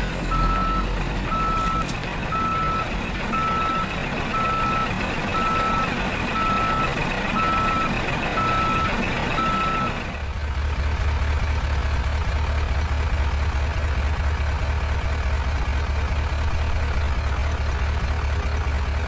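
A truck's reversing alarm beeping about once a second over engine noise, stopping about ten seconds in; a steady low hum then takes over.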